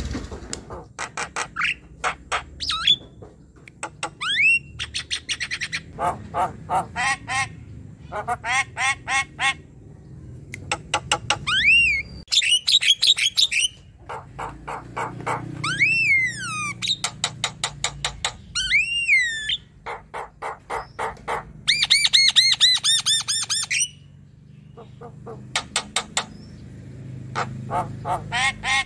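Javan myna singing energetically. It alternates fast, harsh clicking rattles with loud whistles that rise and fall, in phrases of a second or two separated by short pauses.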